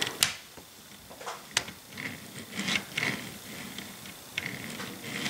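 ScaleTrains HO scale F68AH bulkhead flat car pushed by hand along model track: faint rolling and rubbing of its wheels and trucks on the rails, with a few sharp clicks.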